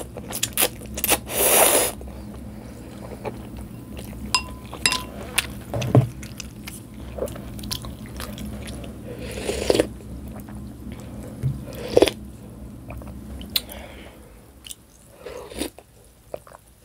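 Close-miked eating: a loud slurp of noodles from a wooden spoon about a second in, then chewing, wooden spoons clicking and scraping in a glass bowl of chicken noodle soup, and further slurps and sips of broth.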